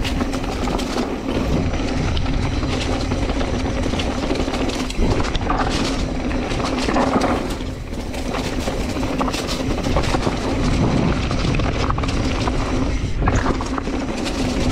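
Mountain bike riding down a dirt singletrack trail: tyres rolling over dirt, small rocks and dry leaves, with a steady low buzz and a clatter of small knocks from the bike.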